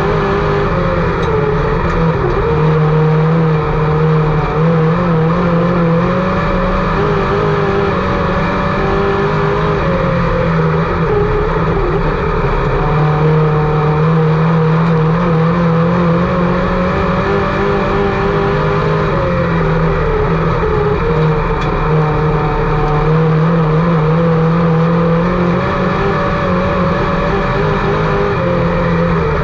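IMCA Sport Mod race car's V8 engine running continuously and loudly, its pitch rising and easing in slow swells every few seconds as the throttle comes on and off around the track.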